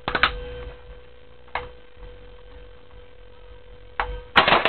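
Airsoft AK rifle being readied and fired on semi-automatic: a few light clicks near the start and one about a second and a half in, then a single sharp shot about four seconds in, followed at once by a loud cry from the person hit. A faint steady hum underneath.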